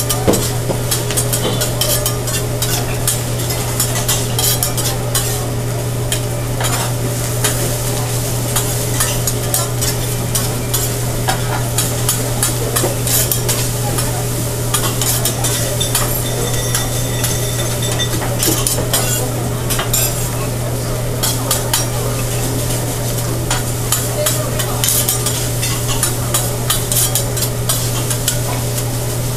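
Fried rice sizzling on a hibachi griddle while the chef's metal spatula and fork scrape and tap against the steel, giving many quick clicks over the frying hiss. A steady low hum runs underneath.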